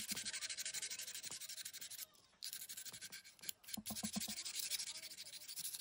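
Wood of a Japanese geta sandal's tooth being hand-sanded with sandpaper: quick scratchy back-and-forth strokes, about six a second, with a short pause about two seconds in.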